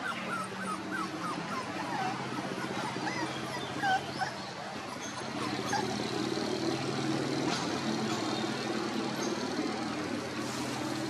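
Young puppies whimpering and yipping in short, high, rising-and-falling cries, most of them in the first few seconds, with the loudest cry about four seconds in, over a steady low hum.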